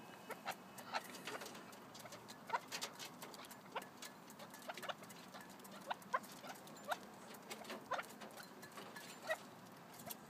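Red-legged partridges pecking grain from a bowl: a few quick, irregular sharp taps and ticks every second.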